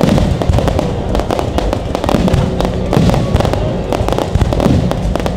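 Fireworks display: many shell bursts and bangs going off in quick succession, with no let-up.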